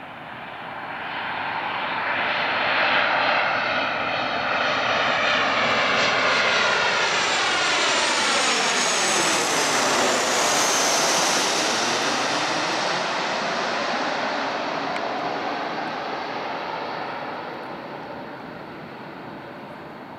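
Boeing 737-700 jet airliner on final approach flying low past, its CFM56 turbofans at approach power. The engine noise swells over the first few seconds and stays loud, with a sweeping change in pitch and a high whine as it passes about ten seconds in, then fades away.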